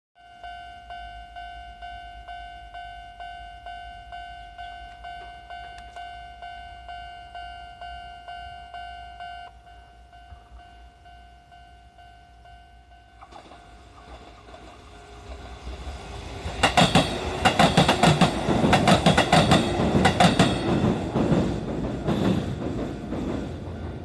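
Level-crossing warning bell ringing about twice a second, growing quieter about nine and a half seconds in. From about thirteen seconds a Sanyo Electric Railway 6000-series electric train approaches and passes, its wheels clacking over the rail joints, loudest for about five seconds before fading.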